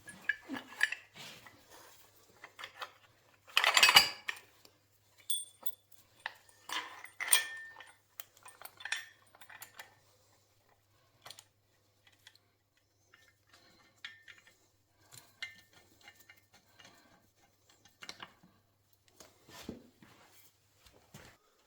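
Metal tools, bolts and steel brackets clinking and clanking as they are handled and bolted on to mount a motorcycle engine on an engine stand. There is a louder clatter about four seconds in, and a few brief metallic rings shortly after.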